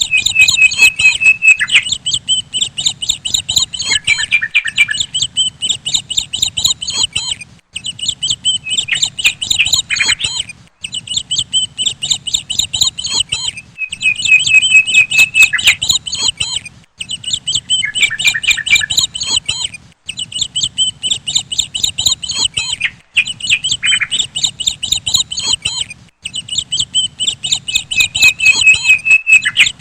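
Small birds chirping rapidly and shrilly, about eight chirps a second, in runs of a few seconds broken by short pauses.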